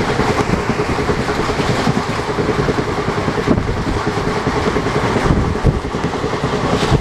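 Passenger express train running at speed, heard from on board: a steady rumble and rush of wheels on rail, with many small irregular knocks.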